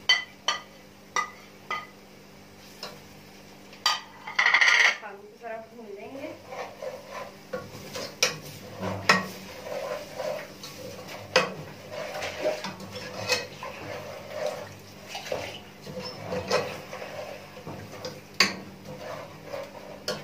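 Metal spoon scraping and clinking against an aluminium pot as minced meat is stirred while it browns, with sharp taps in the first couple of seconds and a louder ringing clatter about four seconds in.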